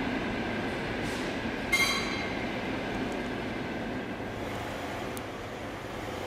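A steady mechanical rumble, with one brief high squeak about two seconds in.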